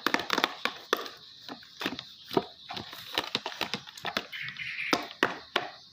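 Sticky homemade glue slime being stirred: a run of irregular wet clicks and squelches.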